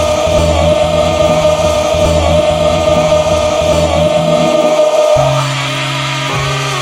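Gospel choir holding one long final chord over a pulsing bass line; about five seconds in the chord ends and a different, steadier bass line takes over as the next track comes in.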